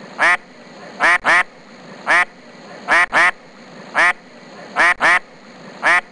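A duck quacking: about ten short quacks in a repeating pattern of one quack, then a quick pair.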